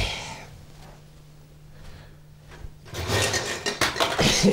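Oven door of an electric cooker opened with a clunk. After a quiet pause, a busy run of rubbing, scraping and clicking comes near the end as a long object is pulled out past the drink cans on the oven racks.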